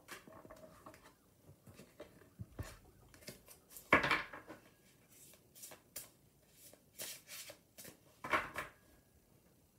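A deck of cards being shuffled by hand: soft scattered clicks and flicks of the cards, with two louder short rustles about four seconds in and again near the end.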